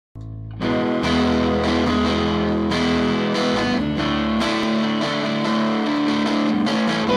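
A live band playing the instrumental opening of a song: two electric guitars, bass guitar and drum kit. The band comes in under a second in and keeps a steady beat of about two drum hits a second under held guitar chords.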